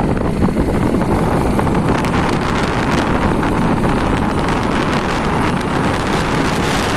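Heavy rain pouring down, a steady dense hiss full of fine patter, with wind buffeting the microphone.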